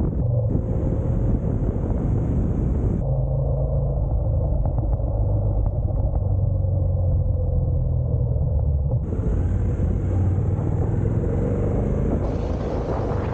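Honda NC750X's parallel-twin engine running steadily under way, a low drone mixed with wind rush on the microphone.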